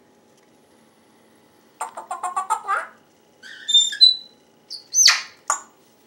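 African grey parrot vocalising: about two seconds in, a fast stuttering chatter of clicks for about a second, then short high whistled notes, then a loud squawk near the end.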